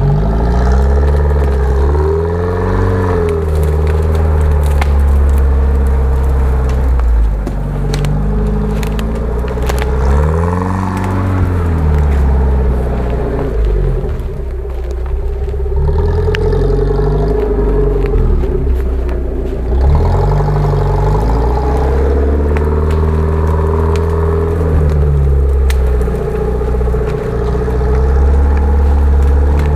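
Off-road 4x4's engine revving up and falling back again and again as it crawls through mud and brush, with scattered crackles of branches.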